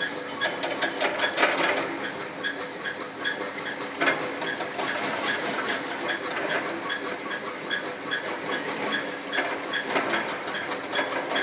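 Motor-driven mortar joint (derz) machine running steadily, with a hum under a regular clacking about two and a half times a second.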